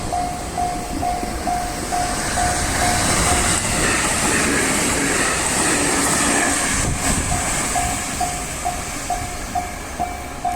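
A train passing over a Japanese level crossing while the crossing's warning bell rings its repeated tone about twice a second. The train's wheel and running noise swells in the middle and drowns out the bell for a few seconds.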